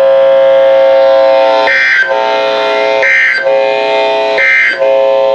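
Emergency Alert System data tones: three short, high-pitched warbling digital bursts about a second and a half apart, the length of a SAME end-of-message code. They play over a steady, buzzy electronic tone that drops out around each burst.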